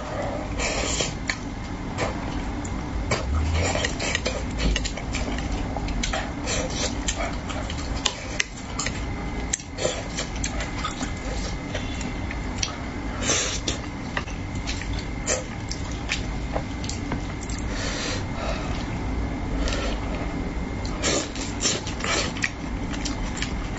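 Close-up eating sounds from spicy braised carp: wet chewing and lip-smacking, with chopsticks clicking against the plate and bowl in many small, irregular clicks.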